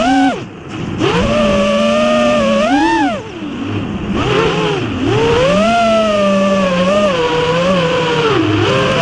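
FPV drone's electric motors whining, the pitch swinging up and down with the throttle. It drops away sharply about half a second in, again after about three seconds, and near the end, then climbs back.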